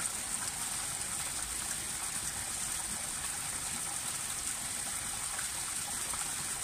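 Water of the Barcaccia fountain at the foot of the Spanish Steps splashing into its stone basin: a steady, even hiss.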